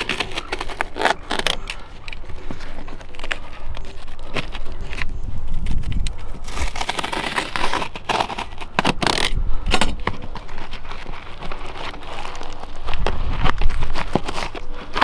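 Knife cutting and scraping brittle, UV-degraded foam pipe insulation and gaffer tape off a solar collector's metal pipe, with the foam pulled away by hand: irregular crackling, scratching and clicking.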